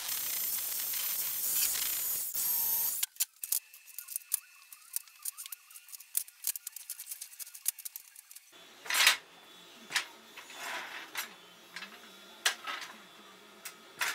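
MIG welder running on a steel tube frame: a steady crackling hiss for about three seconds that cuts off suddenly. Then scattered sharp clicks and knocks, a few louder ones near the end.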